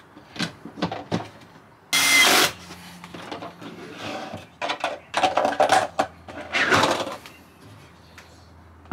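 Cordless impact driver driving screws through a plastic flange into a plywood wall in short bursts. The loudest burst is about two seconds in and two more follow about five and seven seconds in, with light tapping and handling before them.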